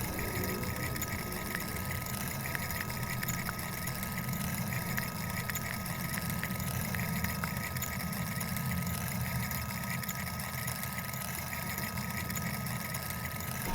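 Steady low mechanical hum with a thin steady whine above it and a few faint ticks.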